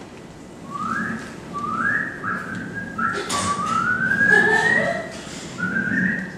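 Person whistling as an improvised sound effect: a string of short rising whistles, then one long slow rising whistle, then another short one.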